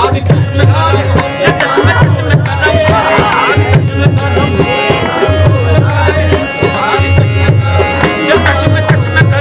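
Live qawwali: harmoniums playing with the lead singers' voices over a steady tabla-style hand-drum beat.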